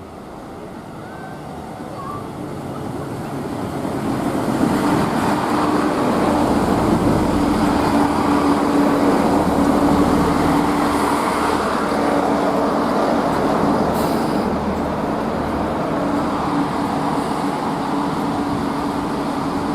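Diesel train coming along the line, growing louder over the first few seconds and then running past loudly with a steady engine hum. A single sharp click sounds about two-thirds of the way through.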